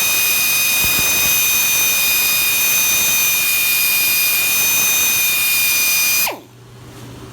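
Pneumatic air drill with an abrasive pad running at full speed against a freshly machined brake rotor, resurfacing it like sandpaper: a loud steady high whine with a hiss. It shuts off about six seconds in and winds down, leaving the brake lathe's low hum.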